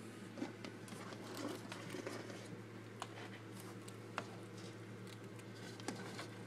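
Faint scattered clicks and light rustling from pet rats moving about in a wire cage, over a steady low hum.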